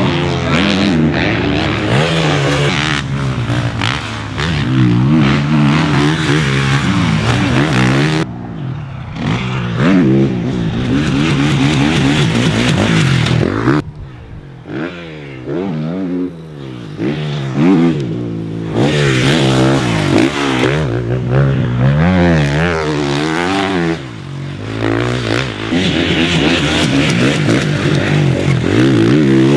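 Motocross bike engine revving hard and backing off over and over as it is ridden around a dirt track, its pitch climbing and dropping with each run between corners and jumps. It is quieter for a few seconds in the middle.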